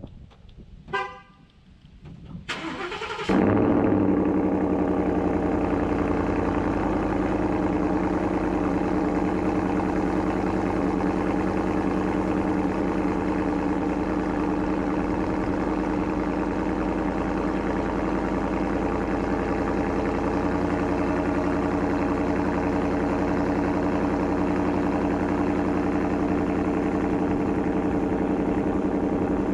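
A short chirp about a second in, then the Ford F-150's 5.0 L Coyote V8 with a Corsa Sport exhaust cranks and fires about three seconds in. It flares on catching, then settles into a steady, fast cold-start idle.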